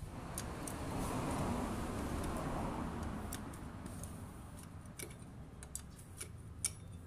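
Light metallic clicks and taps of steel rods working against a motorcycle clutch pressure plate, scattered through the second half. A rushing noise swells and fades over the first few seconds.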